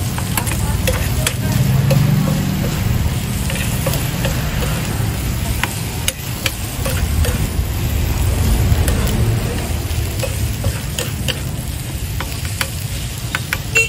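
Two metal spoons scraping and clinking against a hot sizzling plate as chopped meat, onions and a raw egg are mixed on it, the food sizzling throughout, with a low steady rumble underneath.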